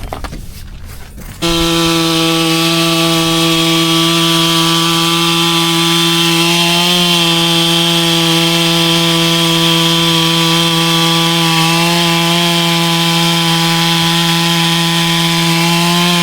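Two-stroke chainsaw running at full throttle while cutting through lake ice. It starts suddenly about a second and a half in and holds a steady high pitch, dipping slightly twice as the bar takes load.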